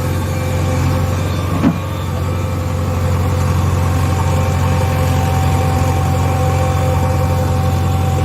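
Small motor of a toy construction vehicle running steadily, a constant hum with a thin whine over it, and a single knock about a second and a half in.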